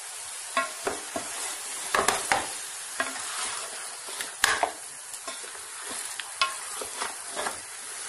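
Beef pieces sizzling in hot oil in an aluminium pot while a spatula turns the ground spice masala through them. Irregular knocks and scrapes of the spatula against the pot sound over a steady sizzle, the loudest about two and four and a half seconds in.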